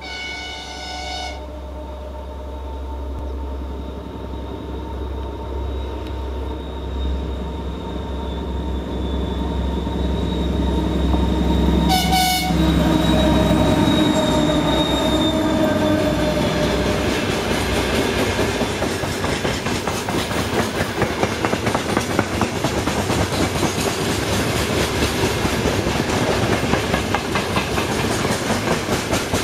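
2M62 two-section diesel locomotive (2M62-1146) pulling a freight train away from the station under power, its two-stroke V12 diesels giving a heavy low drone that grows louder as it approaches. It sounds its horn briefly at the start and again about twelve seconds in. From about sixteen seconds the freight wagons roll past with a dense clatter of wheels over the rail joints.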